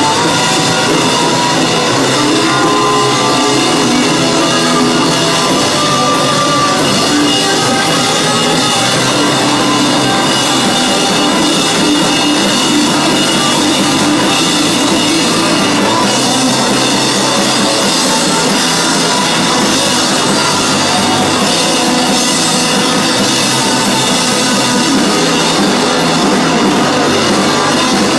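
Live rock band playing loud and without a break: electric guitar over a drum kit.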